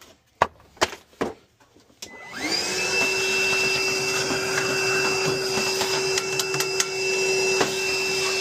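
A few sharp clicks, then a cordless battery-powered vacuum switches on about two seconds in, its whine rising quickly to a steady pitch. It runs steadily, with scattered small ticks, as it sucks lint and debris out of a gas boiler's combustion chamber.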